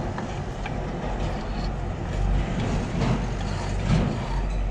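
A steady low rumble, with a knife lightly scraping and tapping on a wooden cutting board as chopped tomato is pushed off into a pot.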